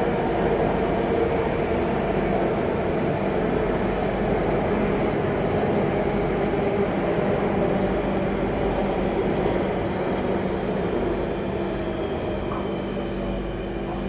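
Singapore MRT Circle Line train heard from inside the carriage while running through a tunnel: a steady rumble of wheels on rail and motor hum, easing slightly near the end.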